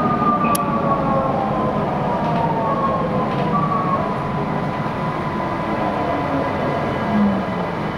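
Type V metro train's electric traction drive whining in several tones that slide slowly down in pitch as the train brakes into a station, over the steady rumble of its running. One short sharp click about half a second in.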